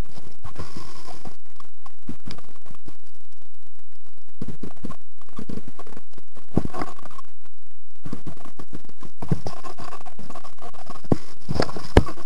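Scratching and rustling handling noise on a gun-mounted camera as the airsoft player moves, in irregular bursts, with a few sharp knocks near the end.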